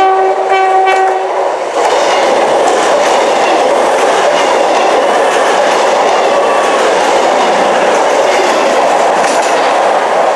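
CrossCountry Voyager diesel multiple unit sounding a short horn note near the start, then passing close at speed with a loud, steady rush of engines and wheels on the rails.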